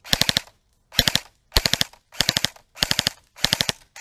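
Airsoft rifle firing full-auto in short rapid bursts of about five shots each, a burst every half to two-thirds of a second.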